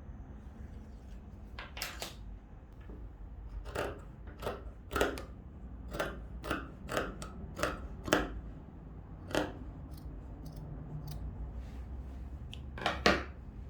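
Scissors cutting fabric: about a dozen short snips at irregular intervals, some in quick pairs.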